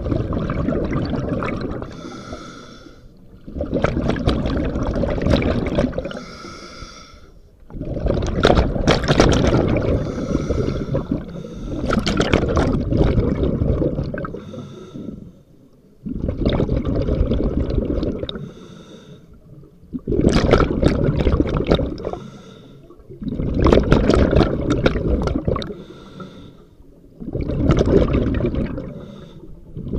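Scuba diver breathing through a regulator underwater, heard through a waterproof camera housing on the diver's mask strap. Each breath is a hissing inhalation followed by a louder rush of exhaled bubbles, about one breath every four seconds.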